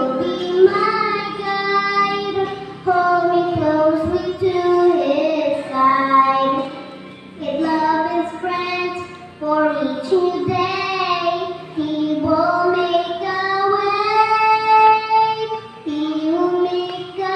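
A young girl singing a Christian song solo, in sung phrases with long held notes and short breaths between them, with music beneath.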